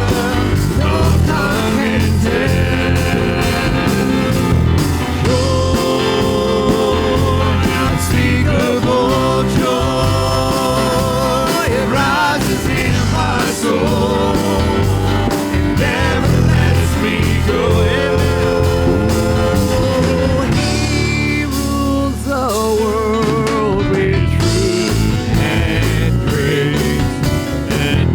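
Live church worship band playing, with a held, wavering melody line over a full band.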